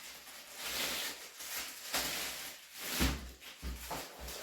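Handling noises: uneven rustling with a few soft knocks, the loudest about three seconds in.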